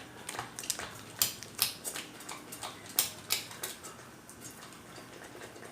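Irregular sharp clicks and taps of a container and utensils against a bowl as hand lotion is added to slime glue, busiest in the first three and a half seconds, then quieter.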